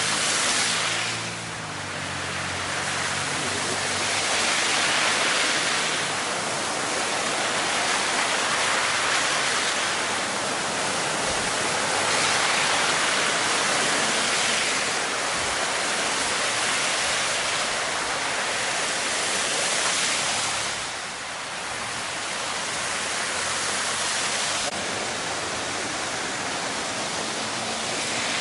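Cars driving through deep floodwater, their tyres swishing and spraying water in a continuous rush that swells and fades several times as vehicles pass.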